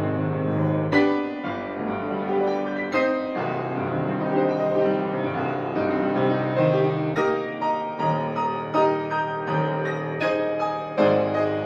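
Background piano music: a melody of struck notes, each fading slowly.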